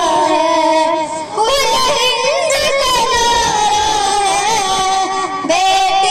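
Young girls singing together into a handheld microphone, amplified over loudspeakers, with long held notes that bend up and down.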